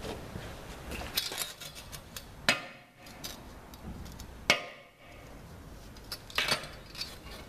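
Steel harvester chain bars clanking and scraping against each other and the steel workbench as they are handled and lined up. There are scattered clinks, with sharp knocks about two and a half and four and a half seconds in, the second the loudest.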